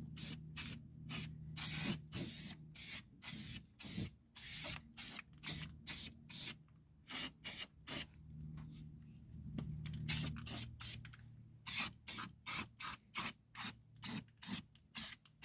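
Aerosol can of rubberized undercoating spraying in short, rapid hissing bursts, about two a second, as a coat is laid onto a vehicle frame.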